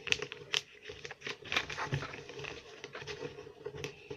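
A sheet of notebook paper being folded and creased by hand: a string of short crackling rustles.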